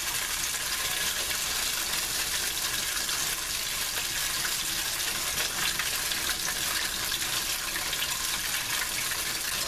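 Tofu strips frying in a stainless steel pan with a lot of oil, sizzling as a steady, even hiss.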